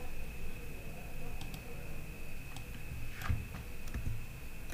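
A few scattered, faint clicks of a computer keyboard and mouse as grading values are entered, the most distinct pair about three seconds in, over a steady faint high tone and low room hum.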